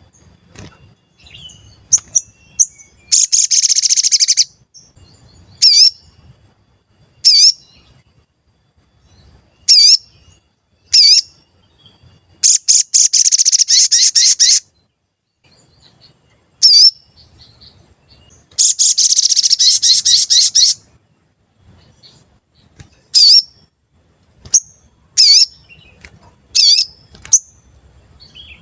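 A sogon (crimson sunbird) singing: loud, sharp, separate 'cuit' chirps, broken by three fast, dense twittering runs of about two seconds each.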